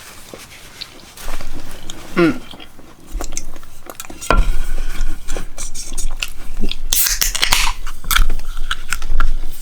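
Close-miked eating: biting into and chewing corn dogs and French fries, with irregular wet chews and crunches, loudest in the second half.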